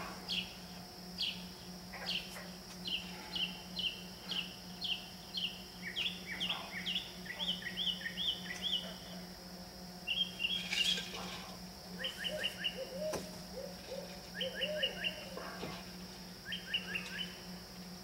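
Northern mockingbird singing at night, repeating each phrase several times before switching: a run of single high chirps about two a second, then paired notes, then quick triplets, with lower warbling notes in between.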